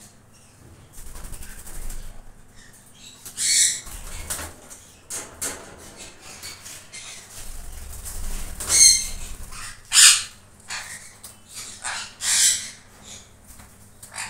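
Sun conures making several loud, short screeches, about four standing out, while their wings flap as birds shuffle and take off.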